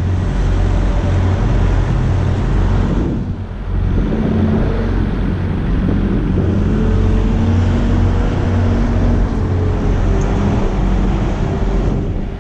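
Steady rumble of truck engines and road traffic, with a low engine hum that wavers slightly in pitch; the rumble dips briefly about three and a half seconds in.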